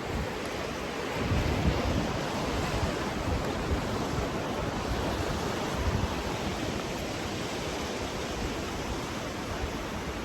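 Atlantic Ocean surf washing steadily onto the beach, with wind gusting on the microphone in low rumbles about a second in and again around six seconds.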